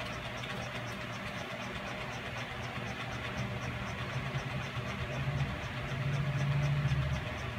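A steady low hum that grows louder about six seconds in, with a faint high chirp repeating about three times a second.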